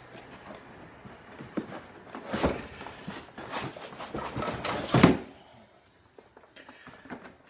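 Packaging being handled as a coffee machine is unboxed: irregular rustling and knocks, with a louder knock about two and a half seconds in and the loudest thump about five seconds in, quieter after.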